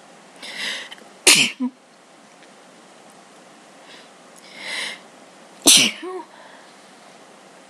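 A person sneezing twice, about four seconds apart: allergy sneezes. Each starts with a sharp in-breath and ends in a loud explosive burst with a short voiced tail.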